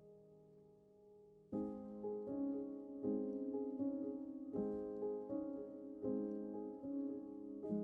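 Soft background piano music: held notes, quiet at first, then a louder chord about a second and a half in and a slow run of new notes after it.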